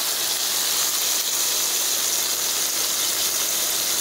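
Thin chicken breasts sizzling steadily in hot olive oil in a pan as their second side browns, with a steady hum beneath.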